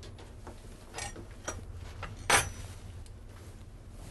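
A few light knocks and clinks as the immersion blender is lifted out of the enamelled pot, the loudest a little past two seconds in. Under them runs a low steady rumble from a passing train.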